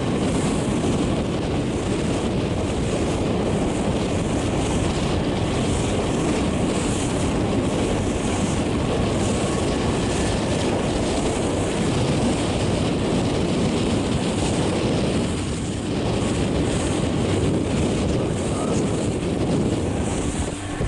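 Steady wind buffeting the microphone over rushing water, with a short lull about fifteen seconds in.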